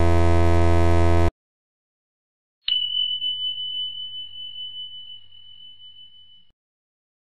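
A loud steady electrical buzz that cuts off abruptly about a second in, then a single high bell ding that rings on one note and fades out over about four seconds.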